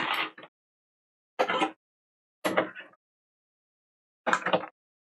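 Cardboard and plastic card packaging being handled, rustling in four short bursts.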